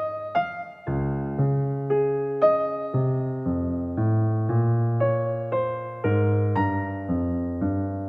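Background piano music: a melody of single notes struck about every half second over held bass notes.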